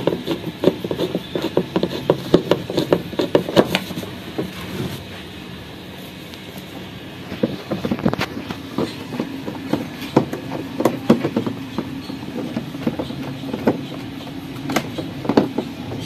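Screwdriver working against the plastic base of a twin-tub washing machine, with the base being handled: irregular clicks, knocks and rattles. They come thick and fast for the first four seconds, then more sparsely.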